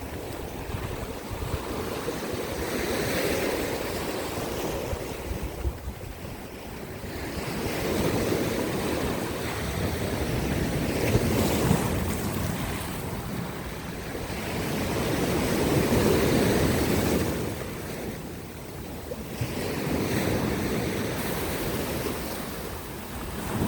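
Sea waves breaking and washing over coastal rocks, the surf swelling and falling away every four to five seconds.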